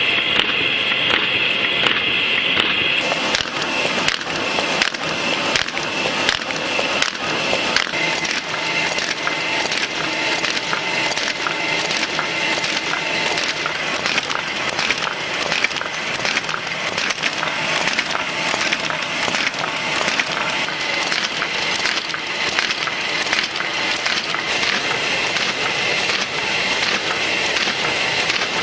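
Sheet-fed paper-processing machine running at speed: a continuous mechanical clatter of rapid, irregular clicks under a steady high whine as sheets are fed through its rollers and belts.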